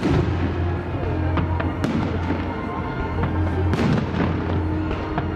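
Aerial firework shells bursting overhead: sharp bangs roughly every two seconds, about three in all, each with a short echoing tail. Music plays steadily underneath.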